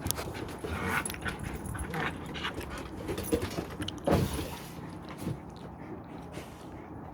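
A dog making short, sharp vocal sounds, with the loudest one about four seconds in.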